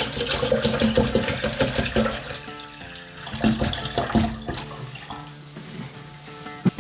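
Background music with steady notes, overlaid twice by loud splashing or running water noise: for the first two seconds or so, and again briefly about halfway through.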